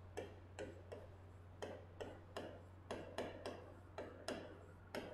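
Faint stylus taps and clicks on the glass of an interactive smart-board display during handwriting, about a dozen short, irregularly spaced taps, roughly two a second, over a steady low electrical hum.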